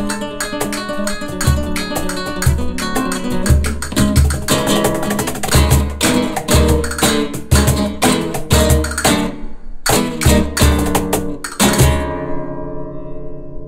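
Castanets played over flamenco guitar and cajón in a rondeña: fast castanet clicks and rolls over strummed guitar, with a low cajón hit about once a second. About twelve seconds in the piece stops on a final accent and the guitar chord rings out and fades.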